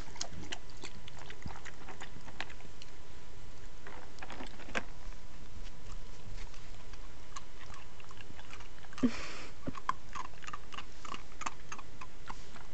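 A dog eating dry kibble from its bowl: irregular crunching and chewing clicks, with a brief louder noise about nine seconds in.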